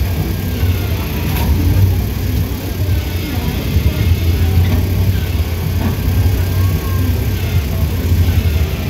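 Grapple truck's engine running steadily with a deep, even hum while its knuckle-boom crane holds a load.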